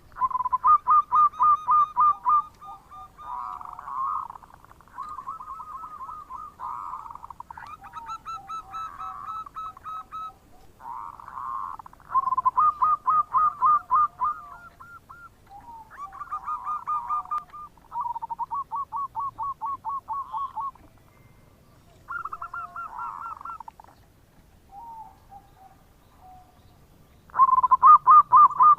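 Local zebra doves (perkutut) calling in their 'bekur' coo: phrases of rapid, evenly repeated staccato notes follow one another with short gaps, some of them overlapping. The loudest phrase comes near the end.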